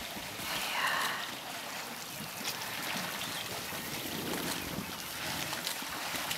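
Water sloshing and splashing as a herd of elephants wades and drinks in a muddy waterhole, with faint scattered splashes, and a brief call about half a second in.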